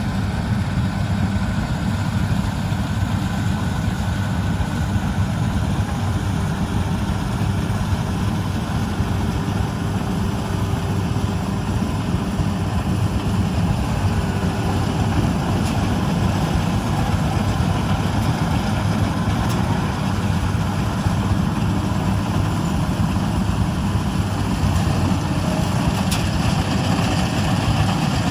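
Combine harvester's engine running steadily, a loud, even, low machine drone.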